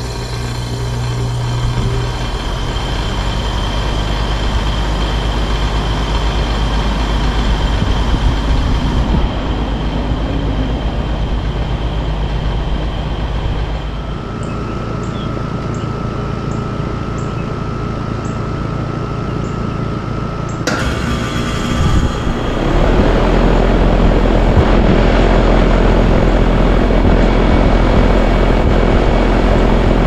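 Outdoor central air-conditioner condensers running with a steady low hum. About two-thirds of the way in, a 2014 Trane XB13 condenser starts up: its compressor kicks on with a jolt and the condenser fan spins up into a louder, steady hum.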